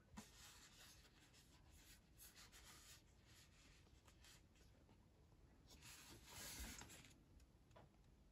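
Faint rubbing and scraping of hands sliding over a glossy cardboard whisky tube as it is turned in the hands: several short strokes at first, then a longer, louder rub about six seconds in.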